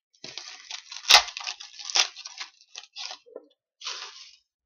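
A stack of hockey trading cards being flipped through by hand: cards sliding and scraping against each other, with sharp ticks as card edges snap, the loudest about a second in and again about two seconds in.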